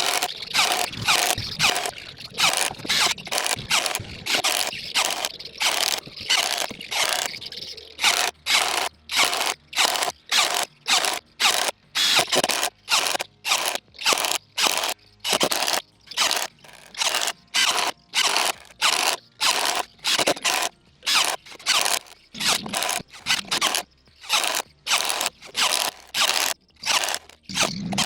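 Cordless impact driver (Dagmara DTD173) run in short, repeated bursts, about two a second, each a brief noisy rattle with a short gap between.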